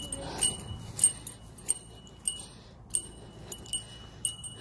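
Walking footsteps, each step set off by a short, bright metallic jingle, about one and a half to two steps a second.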